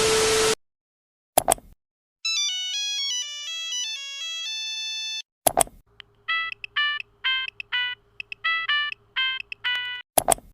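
Nokia-style monophonic ringtones, two in a row. First comes a run of stepped single-note beeps lasting about three seconds, then a rhythmic pattern of short repeated beeps, about three to four a second. Brief whooshing bursts separate them.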